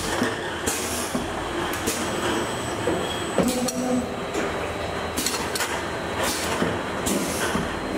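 Automatic bottle-filling machine running: a steady mechanical noise from the conveyor and filler, broken every second or so by short hisses and clacks from its pneumatic cylinders.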